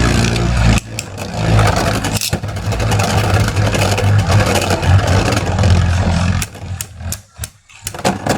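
Beyblade spinning tops whirring and scraping against each other and the plastic stadium floor, a steady spinning drone broken by sharp clicks of collisions. It dies down about six and a half seconds in, leaving a few sharp clicks near the end.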